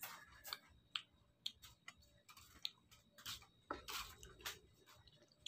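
Faint, irregular crisp clicks of someone biting and chewing firm mango slices, a little denser about three to four and a half seconds in.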